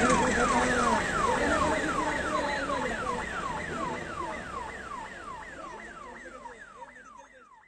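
Police vehicle's electronic siren yelping, a fast repeating tone that falls in pitch about four times a second. It fades out gradually.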